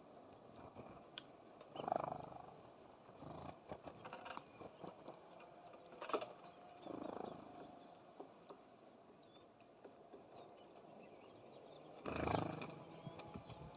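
Songbirds at a feeding station: scattered light taps and ticks with a few faint high chirps, and three louder short rushing sounds about two, seven and twelve seconds in.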